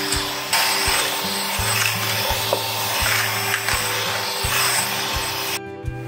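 Dyson Digital Slim cordless stick vacuum running over a wooden floor, its freshly washed roller head spinning normally. The motor noise cuts off suddenly near the end.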